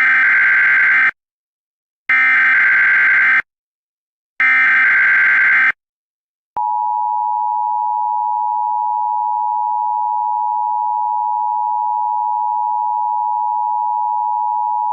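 Emergency Alert System SAME header: three identical bursts of warbling digital data tones about a second apart. A click about six and a half seconds in is followed by the steady two-tone EAS attention signal, which holds for about eight seconds and announces the spoken alert message.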